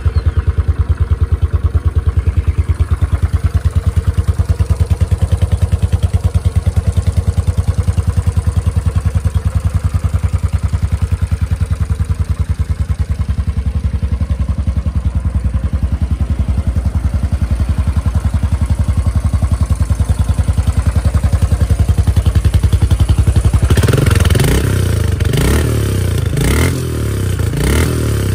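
Royal Enfield Continental GT's 535cc air-cooled single-cylinder four-stroke engine idling with an even, steady thump. Near the end it is blipped several times, the pitch rising and falling with each rev.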